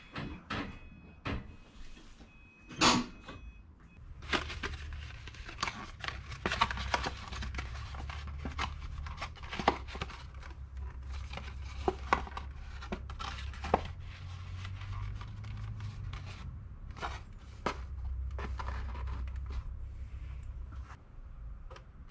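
Paper crinkling and rustling as a sheet is folded into a funnel, with many sharp crackles over a low steady hum. A few knocks come in the first few seconds.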